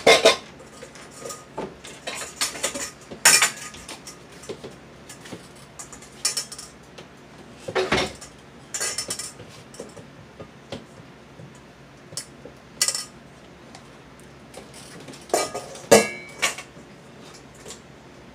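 Metal pots, pans and a stainless steel bowl clanking and scraping in irregular knocks with short ringing as pineapple pieces are shifted into a bigger pan. The loudest clanks come right at the start and about sixteen seconds in.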